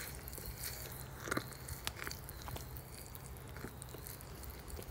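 Steel stirring wand working through molten copper and borax flux in a crucible, with irregular crackles, pops and scraping clicks, two sharper ones about a second and two seconds in, over a low steady hum.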